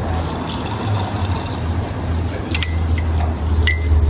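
Steady sound of liquid filling a cup, with a low hum underneath, and a metal spoon clinking against a china cup three times in the second half, the last with a short ring.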